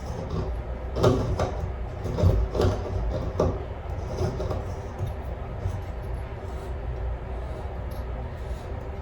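Shower filter being screwed by hand onto a shower arm: a few short knocks and scrapes of handling in the first few seconds, then fainter ones, over a steady low hum.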